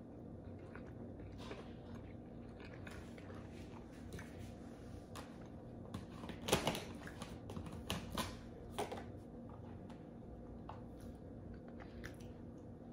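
Close-up chewing and biting of crunchy cookies, with a cluster of sharp crunches about six to nine seconds in, the loudest near six and a half seconds.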